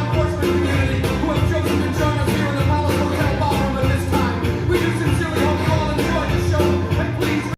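A song with singing and a steady beat, played back through a stereo pair of Eneby Bluetooth speakers.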